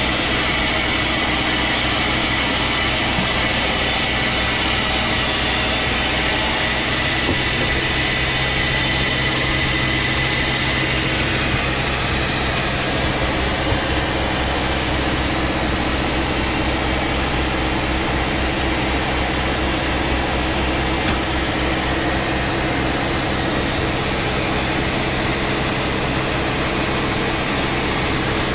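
Engine-driven wood saw running steadily while cutting large timber.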